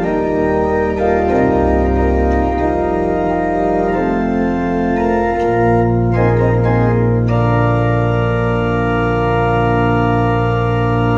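Church organ playing sustained chords that change every second or so, then settling about halfway through onto one long held chord with deep bass underneath.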